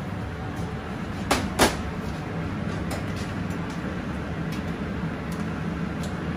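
Two sharp knocks close together about a second and a half in, then a few lighter clicks, as food packs, tubs and scissors are handled on a stainless-steel kitchen counter. A steady low hum runs underneath.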